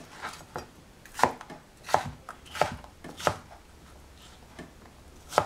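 Chef's knife chopping cucumber into cubes on a plastic cutting board: single sharp strikes of the blade on the board about every two-thirds of a second, a quieter pause, then one louder strike near the end.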